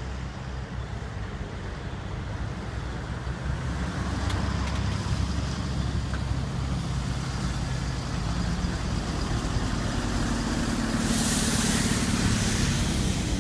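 ChS7 electric locomotive hauling a passenger train, approaching from a distance: a low rumble with a steady hum that grows steadily louder, and a brief rush of hiss near the end.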